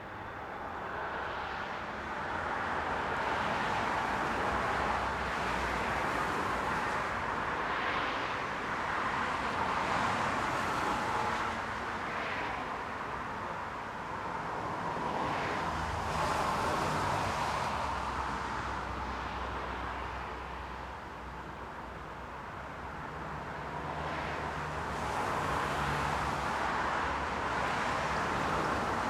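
Busy main-road traffic: a steady stream of cars driving past, tyre and engine noise swelling and fading as each passes, with low engine hum underneath.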